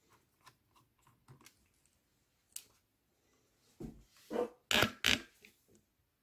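Hand work on the plastic back cover of an HP ProBook 450 laptop: small clicks and taps, then a burst of louder scraping and cracking about four seconds in, as the cover is worked loose.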